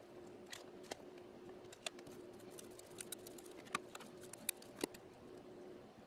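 Faint, scattered clicks and taps of thin laser-cut plywood case panels being picked up, fitted together and set down on a work mat, over a low steady hum.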